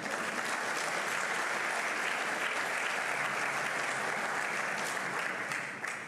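Audience applauding steadily at the end of a talk, fading out at the very end.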